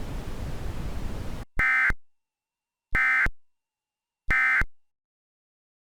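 Emergency Alert System end-of-message (EOM) data bursts: three short, identical, buzzy digital chirps about a second apart, signalling that the alert is over. Before them, a steady hiss from under the warning message cuts off about a second and a half in.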